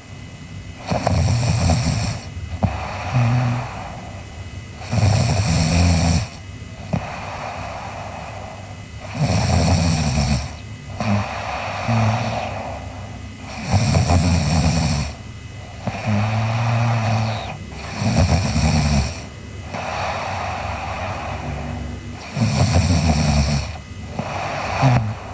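A sleeping girl snoring: a rough, rattling snore about every four seconds, with a softer breath between snores.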